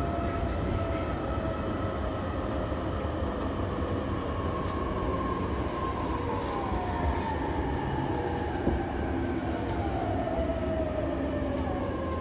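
JR East E233-3000 series electric train running, heard on board: steady wheel and rail rumble with traction motor and inverter whine. The whine slowly falls in pitch as the train slows.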